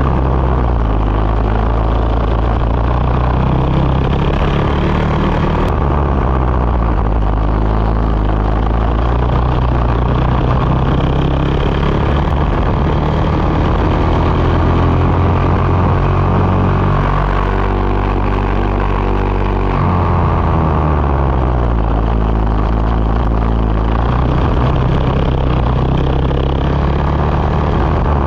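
Racing kart engine heard from the driver's seat at racing speed, its pitch rising on the straights and falling as it slows for corners. About two thirds of the way in it drops low for a few seconds, then climbs again.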